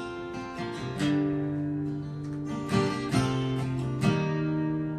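Guitar strumming held chords as a song begins, with fresh strokes about a second in, near three seconds and about four seconds in.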